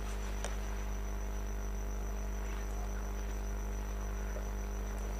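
Steady electrical mains hum with a thin high whine above it, unchanging throughout, and a couple of faint ticks.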